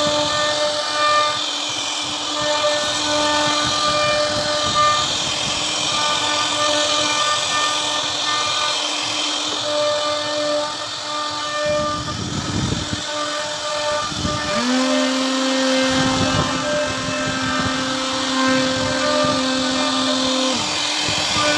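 CNC router carving a wooden door panel: a steady cutting noise of the router spindle milling the wood, with machine tones that switch on and off in short stretches as the machine moves. In the last third a lower steady tone comes in with a short rise and holds for about six seconds.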